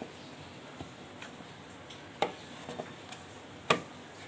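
Bread dough being kneaded by hand in a plastic bowl: a few sharp thumps of the dough knocking against the bowl, the loudest two about two seconds in and near the end.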